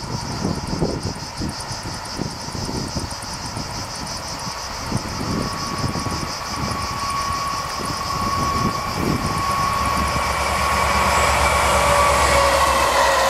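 Euro 4000 diesel-electric locomotive hauling gas tank wagons, approaching and passing. Its engine grows steadily louder: a steady whine builds from about halfway, and a deep hum comes in as it draws level. Cicadas buzz through it.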